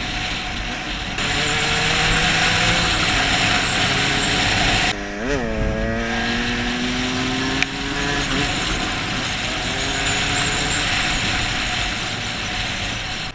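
Enduro dirt bike engine pulling hard at speed, under a heavy rush of wind on the helmet-mounted microphone. About five seconds in, the revs flare up and drop back sharply, then climb steadily again under acceleration, with a single sharp click near the middle.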